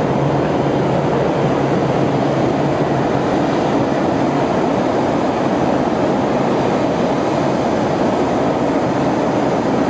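Row of gas burners firing in an industrial kiln: a loud, steady rushing noise.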